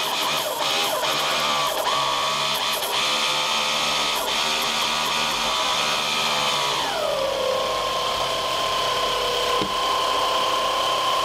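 A 775 DC motor driving a 3D-printed external gear pump that is pumping water, running with a steady whine and a few sharp clicks in the first few seconds. About seven seconds in its pitch glides down and then holds steady at the lower pitch.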